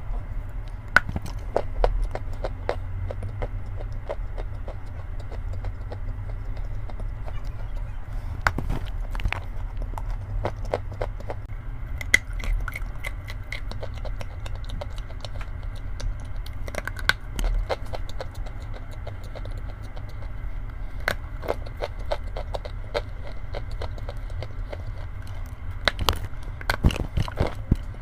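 Chalk crunching as it is bitten and chewed: sporadic crisp cracks in several clusters over a steady low hum.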